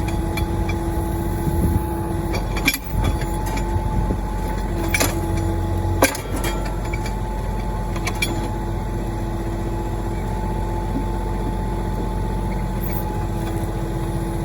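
Mahindra 1626 tractor's diesel engine running steadily as the backhoe works, with a steady whine over it. Several sharp clanks in the first half, then only the even engine drone.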